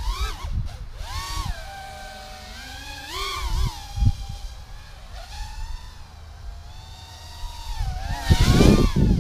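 Mini FPV quadcopter's four 1306 brushless motors spinning 3-inch three-blade bullnose props, a whine that rises and falls in pitch as the throttle changes. It swells around the middle and is loudest near the end, as the drone passes close.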